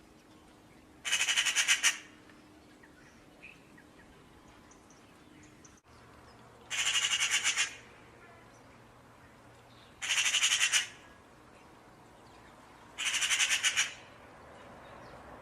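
A bird's harsh, rapid rattling chatter, heard four times, each call lasting about a second.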